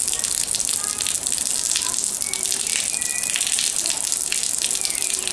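Rainwater leaking from the platform canopy and splashing into a puddle: a steady hissing patter of many small drops and splashes.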